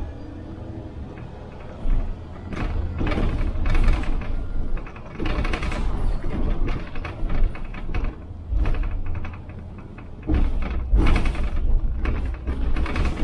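Inside a city bus: the engine runs with a steady low sound while irregular rattling and clattering come and go. It is quieter for the first two seconds or so.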